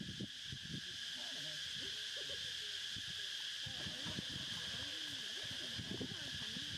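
Steady high-pitched drone of insects, with short, low wavering hoot-like sounds coming and going over it.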